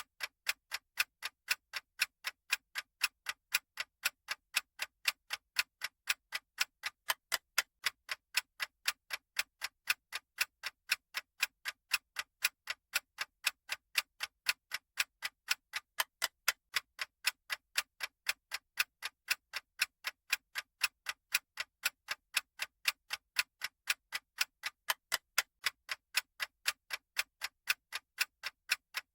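Clock-style ticking sound effect of a countdown timer: sharp, even ticks at a steady pace, a little over two a second.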